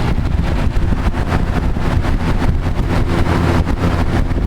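1980s Edison 20-inch box fan running on its high setting, its big motor and blade pushing air in a loud, steady rush with a heavy low rumble of air buffeting the microphone.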